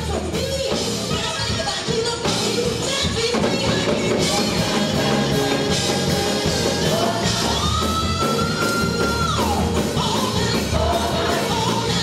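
Gospel music with a voice singing over a full band. Midway through, a high note is held for about two seconds and then slides down.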